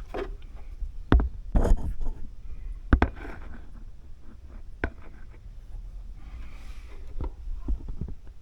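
Scattered knocks and clicks with light scraping from hand tools working at the bolts of a motorcycle's lower-fairing speaker housing.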